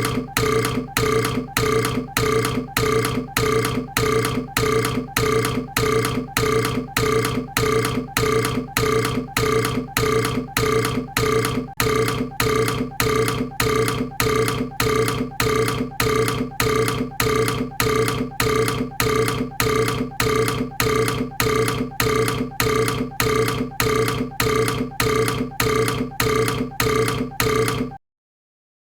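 A person's burp repeated over and over at an even pace of about two a second, each burp sounding the same. It cuts off suddenly near the end.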